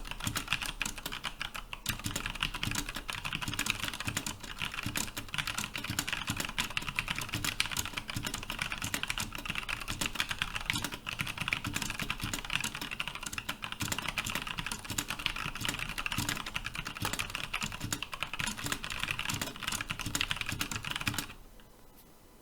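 Fast, continuous typing on a 60% mechanical keyboard with Cherry MX Brown switches and PBT keycaps: a dense stream of key clacks at about 80 words per minute, which stops abruptly about a second before the end.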